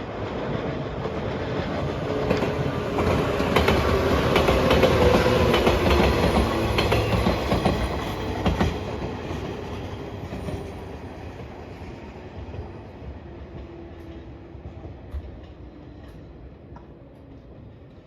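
A train passing at speed, its wheels clacking over the rail joints; it grows louder to a peak about five seconds in, then fades away.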